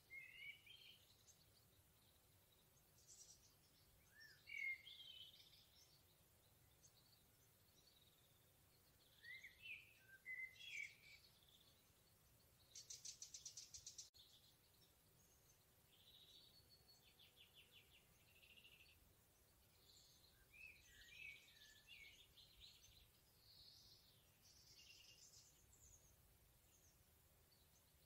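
Songbirds singing quietly in a forest in short, scattered phrases, with a fast rattling trill near the middle.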